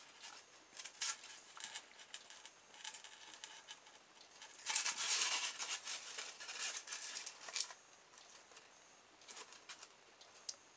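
Handling noise as a polystyrene foam hull is worked with a metal spoke shaft through it: light scratching and scattered clicks, with a denser stretch of scratching from about five seconds in to nearly eight.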